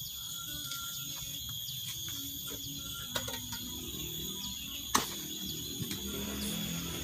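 Steady high-pitched drone of insects, with scattered short clicks and knocks from stones and tools as a rubble-stone wall is laid. The loudest is a single sharp knock about five seconds in.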